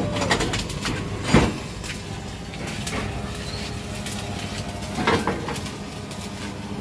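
A steady low hum with a few sharp knocks over it, the loudest about a second and a half in and weaker ones near the middle and near the end.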